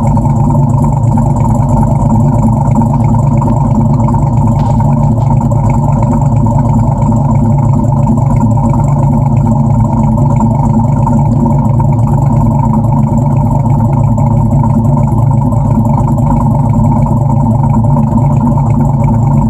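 Dodge Challenger R/T's 5.7-litre Hemi V8, fitted with a Comp Cams 274 camshaft, idling steadily after a cold start, heard at the tailpipes.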